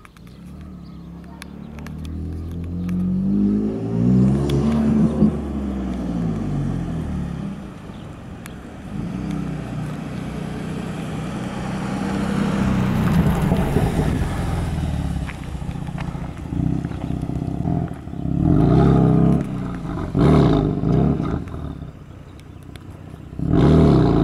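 BMW M4's 560 hp tuned twin-turbo straight-six running at low speed, its note rising and falling as the car moves past, then four short sharp revs in the last seconds.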